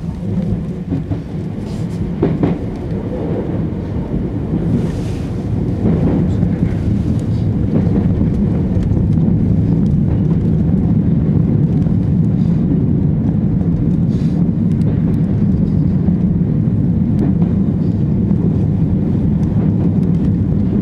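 Tokyu Toyoko Line train running on the rails, heard from inside the rear cab: a steady low rumble of wheels on track with a few light clicks, getting louder about six to eight seconds in and then holding steady.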